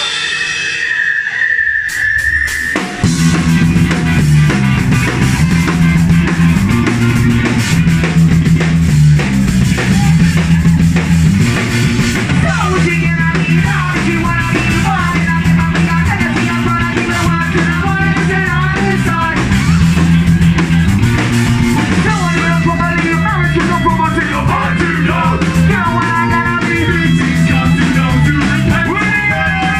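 Live ska-punk band playing loud: after a short held note, the drum kit, bass and guitar come in together about three seconds in, with a repeating bass line and a melody line above from about twelve seconds.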